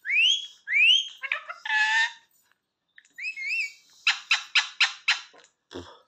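Rose-ringed parakeet (Indian ringneck) calling: two rising whistles, a short warbling chatter, more wavering whistles, then a quick run of about six sharp calls near the end.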